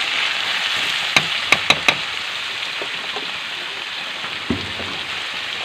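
Corned beef frying with garlic in oil in a hot pan: a steady sizzle, with a quick run of four sharp clicks a bit over a second in and a duller knock near the end.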